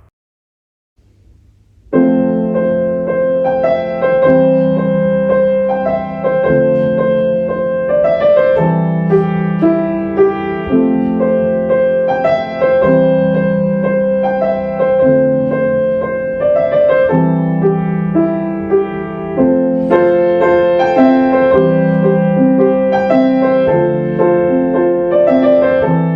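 Background piano music: a slow repeating piece with held chords changing about every two seconds, starting after a brief silence.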